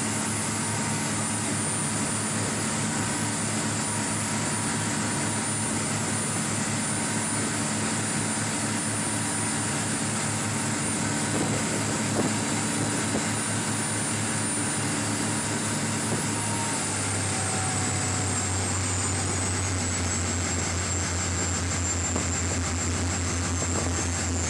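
Speedboat engine running at speed over the rush of its wake and spray, a steady drone with a high whine in it. A little past halfway the engine's pitch drops slightly and settles lower.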